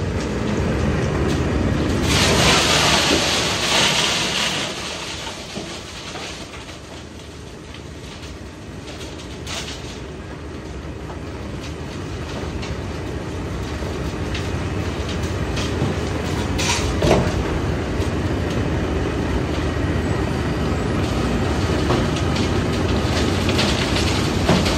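Wirtgen W100CFi cold planer milling asphalt and loading the millings into a tipper lorry just ahead of it. A steady heavy grinding rumble with rattling and diesel engine noise that grows louder as the machines come closer.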